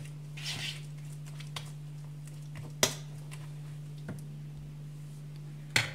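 A fork clicking against a ceramic dish while a batter of egg, cheese and parsley is stirred: a few separate sharp taps, the loudest about three seconds in and near the end, over a steady low hum.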